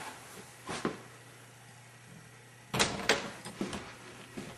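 Interior door being opened by its knob: a light click about a second in, then two loud sharp knocks close together just past the middle, followed by a few smaller clicks and taps.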